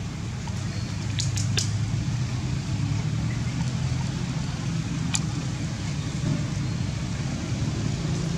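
Steady low motor rumble, with a few sharp ticks about a second in and again near the middle.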